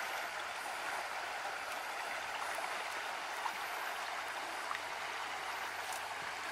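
Steady rush of shallow water flowing past a concrete channel, with a few faint high chirps over it.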